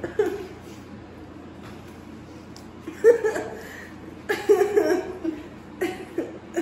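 A girl laughing in short bursts with pauses between them, the loudest about three seconds in and again around four and a half to five seconds.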